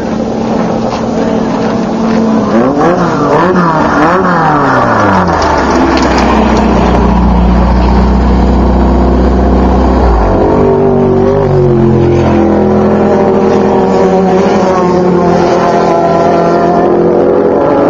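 Off-road race car engine revved up and down a few times, then running loudly and steadily, its pitch shifting and climbing again near the end.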